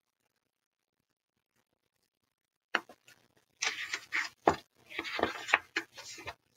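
Silence at first. About three seconds in, a sharp click, then a picture book being handled and a page turned: crisp paper rustling with a few sharp taps, for about three seconds.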